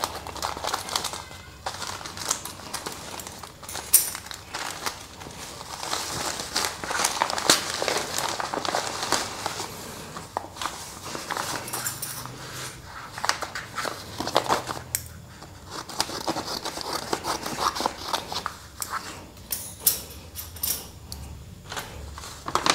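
Plastic courier bag and bubble wrap crinkling, then a sheet of paper rustling as it is handled and unfolded, with irregular crackles and small clicks throughout.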